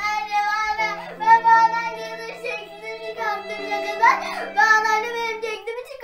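A children's song: a child's singing voice over instrumental backing with a held low note.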